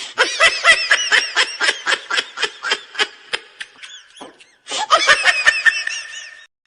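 Laughter sound effect: rapid, high-pitched bursts of laughing in quick ha-ha pulses. There is a short break about four seconds in, then a second round of laughing.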